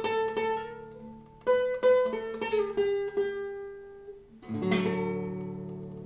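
Classical nylon-string guitar played fingerstyle: a run of plucked single notes, then a full chord about four and a half seconds in, left ringing and slowly fading.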